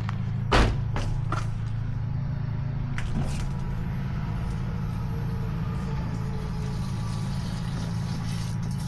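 Car's electric fuel pump running on a test output, pushing fuel out of the return line through a hose into a plastic gas can, over a steady low hum. A sharp knock about half a second in, and a few lighter clicks.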